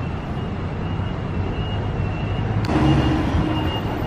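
Road traffic on a city street: a steady rumble of engines and tyres from cars and a bus, a little louder about two-thirds of the way through.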